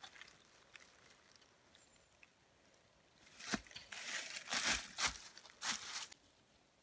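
Dry leaves and twigs crunching and rustling in a run of short bursts, starting about three seconds in, as firewood is gathered by hand from the leaf litter.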